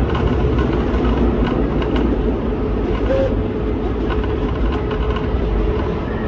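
Vinyl cutting plotter running as it cuts a vehicle decal: a steady mechanical whir with a faint held tone, over a steady low rumble.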